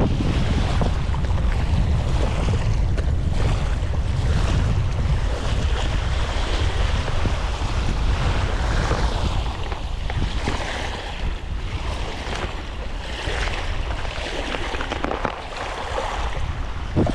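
Sea waves washing with wind buffeting the microphone, a steady rushing noise with a heavy low rumble.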